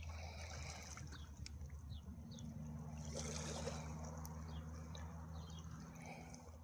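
Faint morning ambience: small birds chirping in short, high, falling notes, repeated every second or so, over a steady low hum. A soft wash of water-like noise swells about three seconds in.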